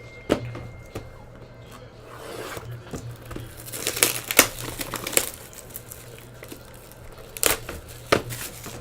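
Crinkling and tearing of card packaging as a trading card pack is opened, with a few sharp clicks of cards and packaging being handled.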